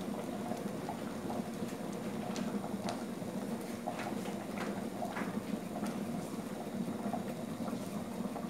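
Pots of rice and beans simmering on a gas stove, a steady bubbling with scattered small pops and clicks.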